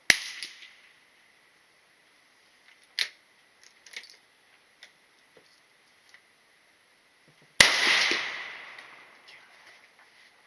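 Two loud gunshots about seven and a half seconds apart, the second trailing off over about two seconds. A fainter shot comes about three seconds in, followed by a few small clicks.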